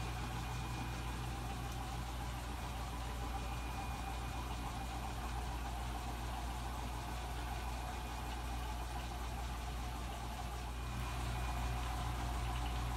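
Steady low machine hum, a running motor or fan-type drone with no rhythm, a little louder in the last couple of seconds.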